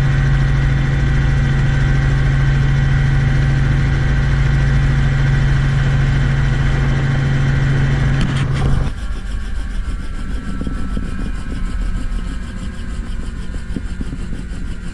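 Robinson helicopter's piston engine idling on the ground, heard from inside the cabin, then cut off about eight and a half seconds in. The main rotor keeps turning, swishing in an even rhythm as it winds down after shutdown.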